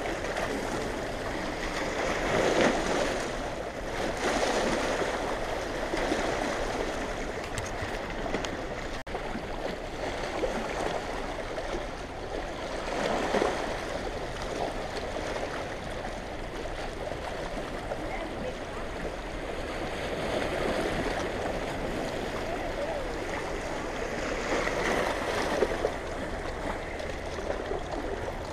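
Rushing, churning water of a dam tailrace during a heavy flood release, a steady roar that swells and eases every few seconds.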